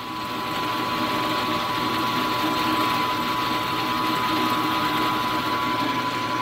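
Benchtop mill-drill's spindle motor running steadily at about 1,000 RPM, a constant whine over a low hum, spinning an edge finder.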